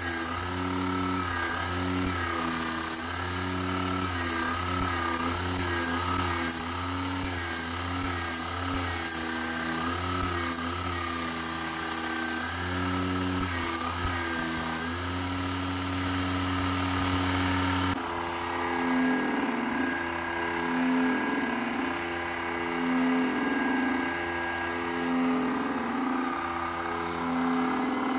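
Home-built generator rig running: a small brushless DC motor spins a permanent-magnet alternator feeding microwave-oven transformers, giving a steady hum and whine that wavers slightly in pitch. The sound changes character about 18 seconds in.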